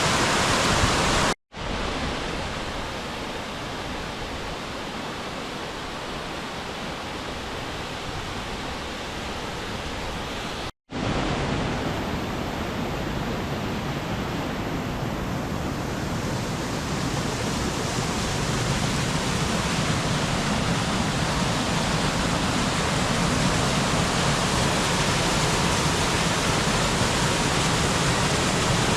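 Mountain stream rushing steadily, a continuous noise of white water. It cuts out for an instant twice, about a second and a half in and again near eleven seconds, changing slightly in level after each break.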